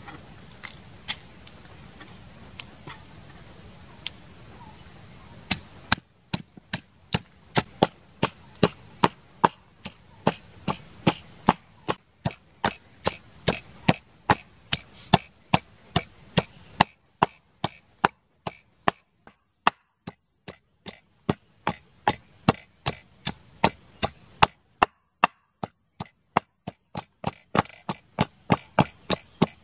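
Wooden pestle pounding chillies, garlic and leaves in a wooden mortar: sharp knocks, about two to three a second, starting about six seconds in, with one short pause near the end.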